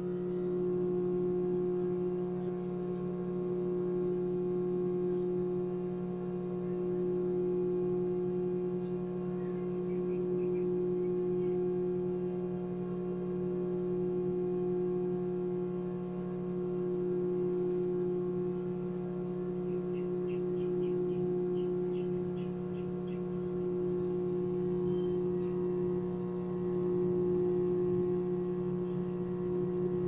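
GE microwave oven running on high, a steady electrical hum with the turntable motor turning, while the oven fails to heat the water inside: the sign of a fault in the magnetron or its high-voltage parts.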